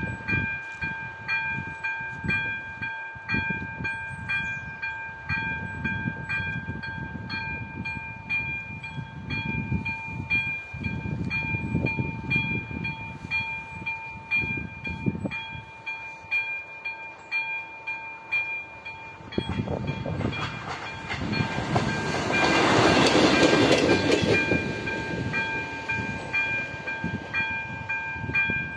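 Level-crossing warning bell ringing in a steady, evenly repeating pattern. A passenger train approaches and passes about 20 to 25 seconds in, and its rushing noise is loudest then.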